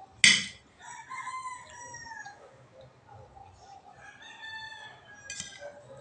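A rooster crowing twice in the background, two long calls a couple of seconds apart. A sharp clink of a spoon against the dishes comes just before the first crow and is the loudest sound, with a lighter clink near the end.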